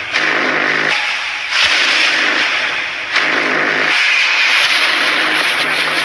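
Loud dramatic title-intro soundtrack: rushing, whooshing swells over a low steady drone, each surge starting suddenly about every one and a half seconds.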